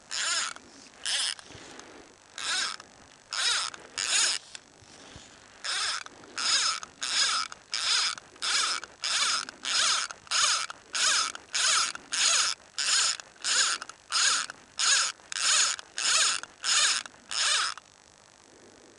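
Fly line being stripped in by hand through the rod guides in a series of short pulls, about 25 in all: a few spaced strokes at first, then a steady rhythm of about one and a half pulls a second, stopping near the end.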